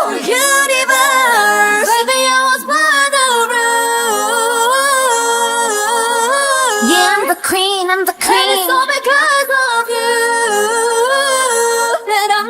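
A high female voice singing a long, ornamented vocal run with sliding, wavering pitch and no clear words, with a short break about seven seconds in.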